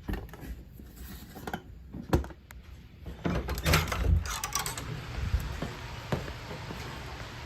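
Scattered knocks, clicks and rattles of objects being handled, thickest about three to five seconds in, over a low rumble.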